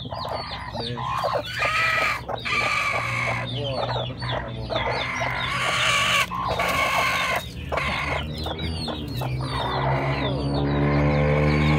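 Broody black hen on her nest clucking and giving harsh squawks as a hand reaches under her, over many short high-pitched peeping calls. Background music comes in near the end.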